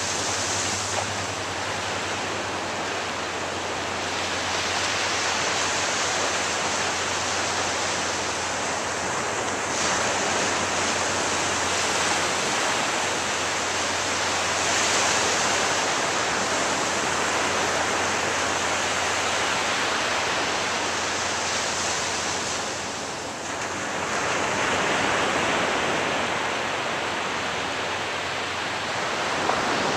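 Ocean surf breaking and washing up a beach: a continuous rushing that swells and eases, dipping briefly a little after twenty seconds before building again.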